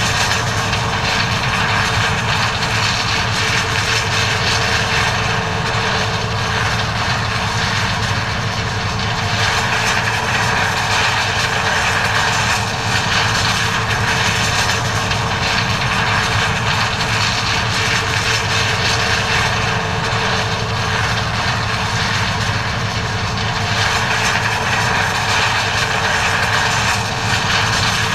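John Deere 9400 combine running steadily while harvesting corn: an unbroken mechanical drone with a constant hum.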